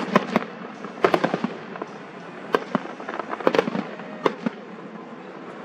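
Fireworks going off: a run of sharp bangs and crackling pops, coming in clusters every second or so.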